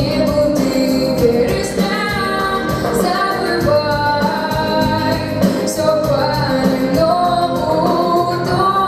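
A female voice singing a song with instrumental accompaniment.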